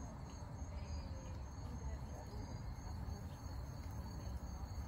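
Insects chirping in a steady, high-pitched pulsing rhythm over a low steady rumble.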